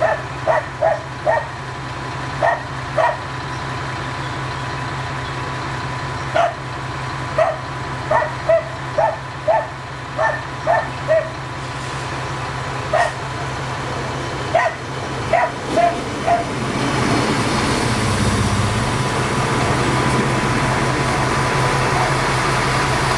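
A dog barking in short, sharp barks, in clusters for about the first 16 seconds, over the steady low hum of an idling diesel train. The barking then stops, and a Siemens Desiro diesel multiple unit draws up alongside, its running noise rising and filling the rest.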